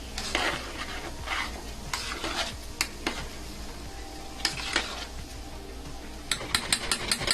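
A spoon stirring and scraping in a pot of cooking soup, in several short strokes, followed near the end by a quick run of sharp clinks against the pot.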